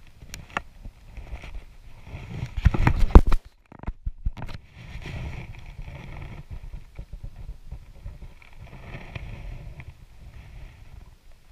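Handling noise as a landed northern pike is picked up off wooden dock boards. There are scattered knocks at first, then a dense run of thumps about three seconds in, which is the loudest part, followed by steady rustling of clothing against the camera.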